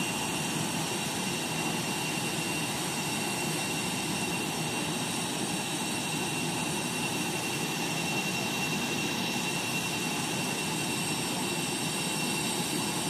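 Steady jet whine and rushing noise of airliners on an airport apron, with a high, unwavering tone over the rush.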